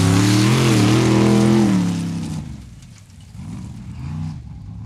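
Formula Offroad car's engine revving hard as the car slides and spins on loose gravel, its pitch wavering up and down. About two seconds in, the revs fall and the sound drops away, with fainter, uneven revving after that as the car pulls off down the track.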